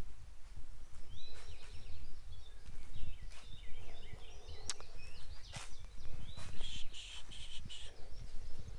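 Birds chirping in quick, repeated short notes, over footsteps on woven plastic landscape fabric and a few sharp clicks.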